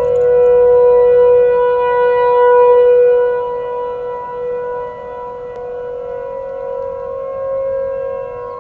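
Several outdoor warning sirens, ASC T-128s and Federal Signal Thunderbolt 1000ATs, sounding a steady alert tone together during a monthly test. Their pitches sit slightly apart, and the blend swells and fades: loudest for the first three seconds, then softer with another swell near the end.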